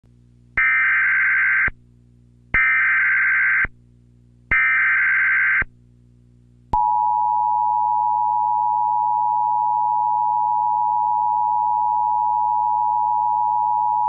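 Emergency Alert System SAME header: three bursts of digital data tones about a second long, each a second apart. About a second after the last burst, the steady two-tone EAS attention signal starts and holds on.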